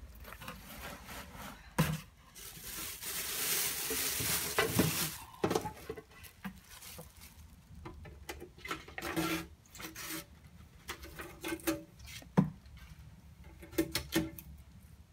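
Clear plastic bag and shredded paper packing rustling and crinkling as they are handled, heaviest for a few seconds from about two seconds in, then in softer bursts, with a couple of sharp knocks.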